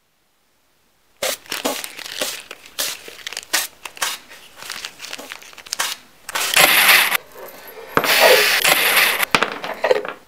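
Hand work on the cedar strips of a wooden strip-built kayak: a quick run of small clicks and knocks, then two longer scraping strokes of about a second each.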